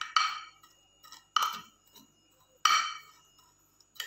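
Steel spoon clinking against a glass baking dish as it presses vermicelli flat: three ringing clinks about a second and a quarter apart, and a lighter tap near the end.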